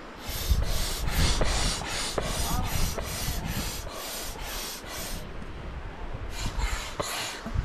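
Hand air pump inflating a rubber inner-tube river float: a quick run of rhythmic hissing pump strokes, about two to three a second, a pause about five seconds in, then three more strokes.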